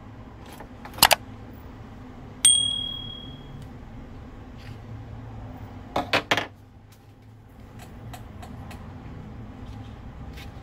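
A few sharp clicks and taps of small hard objects, including one metallic ping that rings out clearly and fades over about a second; a double click comes before it and a quick run of three or four clicks follows. A low steady hum sits underneath.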